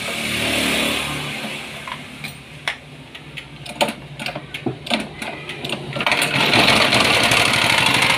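Chinese-made GX160-type single-cylinder engine, air filter not yet fitted, being pull-started by its recoil rope. After a short burst and some scattered clicks and knocks, it catches about six seconds in and runs steadily: the rebuilt engine that had been hard to start now starting.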